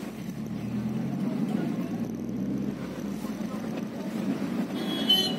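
Car driving, heard from inside the cabin: a steady low engine and road rumble, with a brief high-pitched tone near the end.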